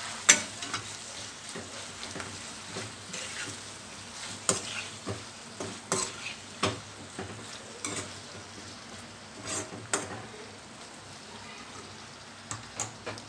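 Drumstick pieces and onions sizzling in oil in a kadai while a metal spatula stirs in ginger-garlic paste, scraping and clicking against the pan at irregular moments, the loudest knock right at the start. The stirring stops shortly before the end, leaving the sizzle.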